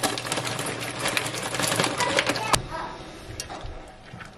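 Dry mafalda pasta pouring into an enamelled cast-iron pot, a dense rattling clatter that ends with a sharp knock about two and a half seconds in. Quieter scattered clicks of a spoon stirring the pasta in the pot follow.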